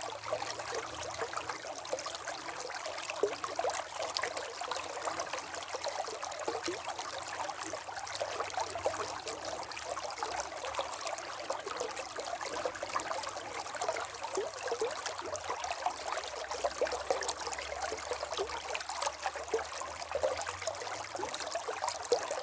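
A small river or stream running over stones, a steady babble of water with many small splashes and gurgles.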